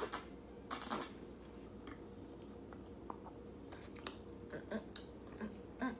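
Close-miked sips of a frozen watermelon margarita: two short slurping sips within the first second, then a few soft clicks.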